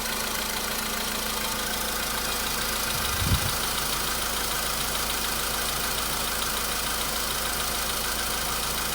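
Volkswagen Polo Sedan's 1.6-litre CFNA four-cylinder petrol engine idling steadily after a cold start, with the hydraulic lifter tapping that follows a cold start having died away. A single brief low thump about a third of the way in.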